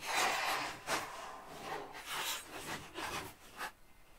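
Several short rubbing, scraping noises, the loudest right at the start and another about a second in.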